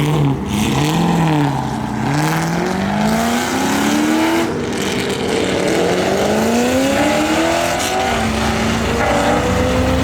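A car's engine accelerating hard away, its note rising in about three pulls with a drop between each as it shifts up, then holding steadier near the end.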